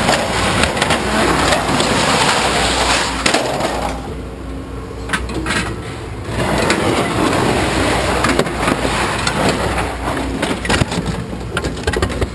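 Scrap metal clattering and scraping as it is unloaded and tossed onto a pile, with scattered sharp knocks; it eases off for a couple of seconds partway through.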